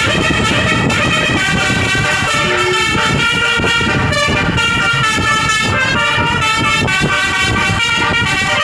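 Bus telolet horn, a multi-tone air horn playing a run of quickly changing notes, with vehicle engine and road rumble underneath.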